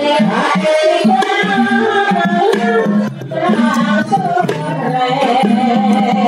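Javanese gamelan music accompanying an ebeg horse dance: hand drumming with singing over sustained pitched instruments.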